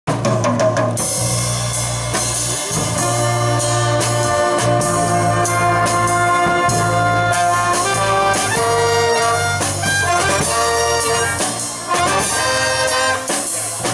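Jazz big band playing an instrumental introduction: saxophones and brass holding chords, over drum kit and bass.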